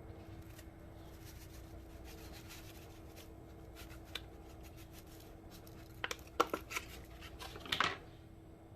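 Kitchen handling noises over a steady faint hum: a few isolated clicks, then a short cluster of sharp clicks and rustles about six seconds in.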